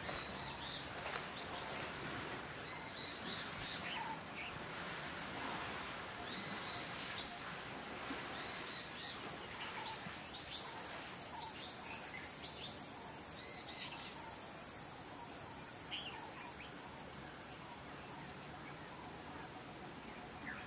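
Birds chirping on and off over a steady outdoor hiss, with a quick run of short, high, falling chirps about twelve seconds in.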